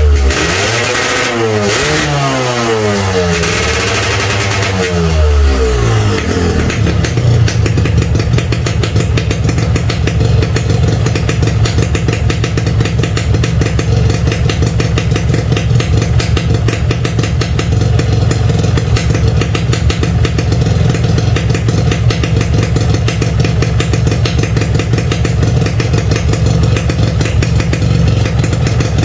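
Yamaha RX King's single-cylinder two-stroke engine revved up and down a few times, then settling about six seconds in to a steady idle.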